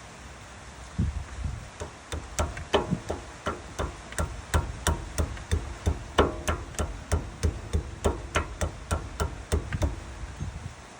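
Hammer blows on metal, a steady series of sharp strikes about three a second, many with a short ringing tone, during work on a Land Cruiser's front differential pinion and oil seal.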